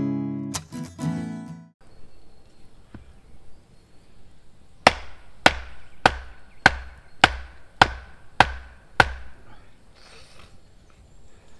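Acoustic guitar strumming ends about two seconds in. Then a wooden pole is driven into the ground by striking its top with a short piece of log: eight sharp wooden knocks a little over half a second apart, each with a brief ring.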